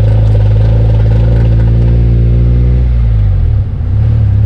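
2001 Honda CR-V rear differential making its droning, roaring noise while the car turns: a loud, steady hum with several stacked tones that falters and drops about three seconds in. This is the rear-end noise on turns that the owner traced to a worn-out rear differential dynamic damper.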